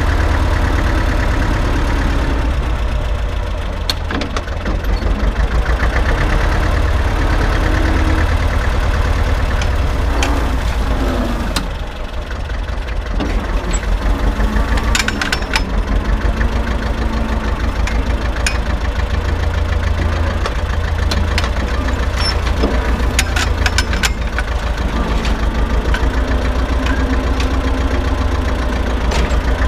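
Tractor engine running steadily with a deep pulsing drone while towing a seed drill, easing off briefly about twelve seconds in. A few sharp clanks are heard in the second half.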